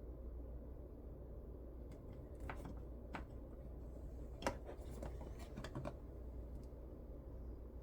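A faint steady low hum with a scatter of light clicks and taps, about a dozen, between about two and six seconds in; the sharpest click falls near the middle.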